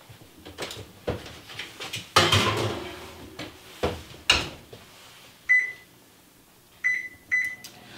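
Wall oven being loaded and set: a clatter about two seconds in and a sharper bang about four seconds in as the oven door opens and shuts on the cake pan, then three short high electronic beeps from the oven's control panel as the temperature and timer are keyed in.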